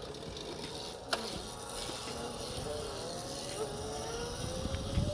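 Razor MX650 electric dirt bike's motor whining, its pitch climbing slowly over the second half as the bike picks up speed. A single sharp click about a second in.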